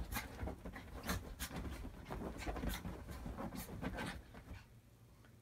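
Small dog scrambling and rubbing itself against fabric couch cushions: a run of scratchy rustles and scuffs that dies down about four and a half seconds in.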